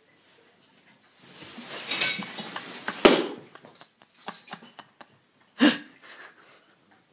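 Hard objects clinking and clattering, with a rustling scrape building from about a second in, a sharp knock about three seconds in and another near six seconds.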